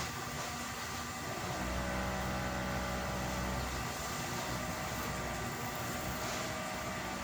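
Steady mechanical hum over a hiss, with a deeper hum coming in about a second and a half in.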